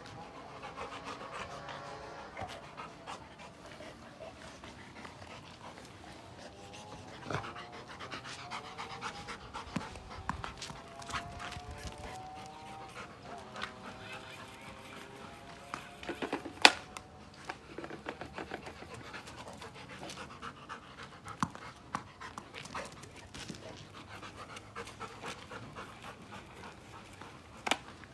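Golden retriever panting in quick, even breaths throughout. About two-thirds of the way in there is one sharp knock, the loudest sound, and a second one near the end.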